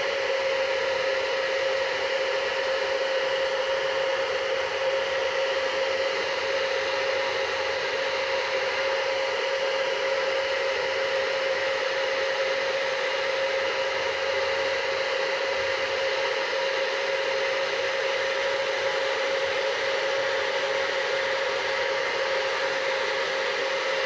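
UNIKARA ionic hair dryer with a diffuser attachment running steadily on the hot setting: a constant whine over the rush of air.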